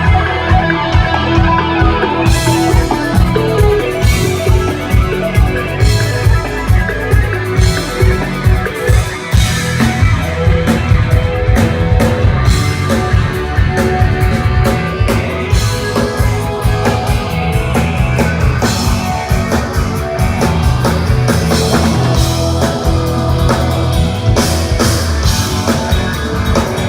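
A rock band playing live and loud, with electric guitar and drum kit; drums and cymbals come in about two seconds in.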